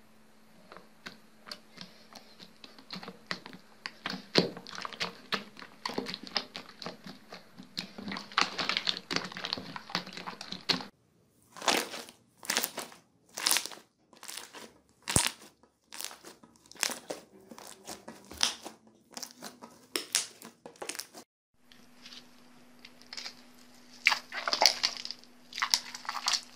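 Slime being pressed and squeezed by hand, giving a dense run of sticky crackles and clicks at first, then a series of separate loud wet pops about once or twice a second.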